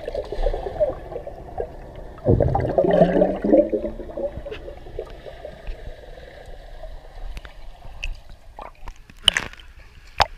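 Pool water heard underwater: muffled bubbling and gurgling, strongest about two to four seconds in. It settles to a low wash, and a couple of sharp splashes come near the end.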